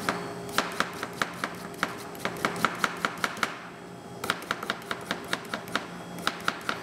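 A raw parsnip being peeled: quick short scraping strokes, about four or five a second, with a pause of about a second a little past halfway. A faint steady hum runs underneath.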